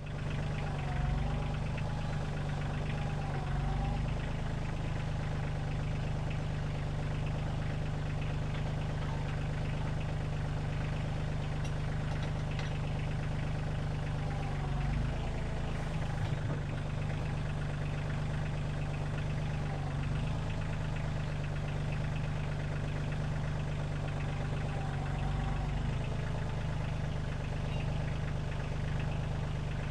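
Kioti CK2610 compact tractor's diesel engine running steadily with a low rumble, a wavering higher tone coming and going several times over it.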